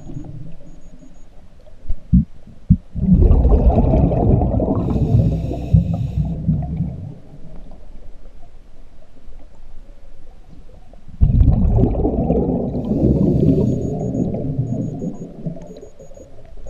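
Scuba diver's breathing through a regulator heard underwater: two long exhalations of bubbling rumble, the first starting about three seconds in and the second about eleven seconds in, each lasting four to five seconds. Two short knocks come just before the first.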